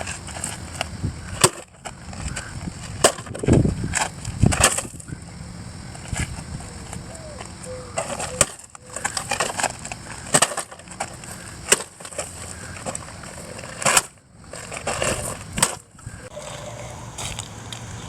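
Irregular knocks, clicks and clatter over a rough, rolling noise, with no steady motor running.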